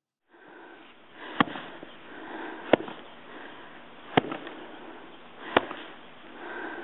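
Snow shovel digging into deep snow in a steady rhythm: a sharp knock about every second and a half as the blade strikes, with scraping and the rush of thrown snow in between.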